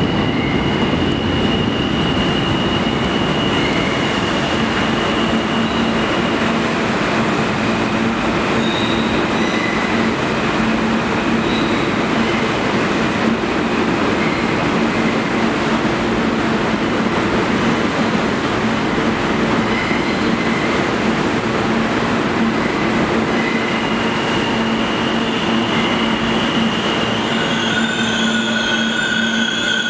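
New York City subway E train pulling into an underground station and slowing to a stop. Steady loud rumble of steel wheels on rail with high squealing, a steady low hum setting in about four seconds in, and high-pitched tones rising in near the end.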